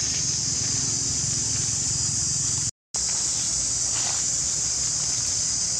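Steady high-pitched drone of forest insects such as cicadas, an even hiss with a low hum beneath it. The sound cuts out for a moment just before halfway.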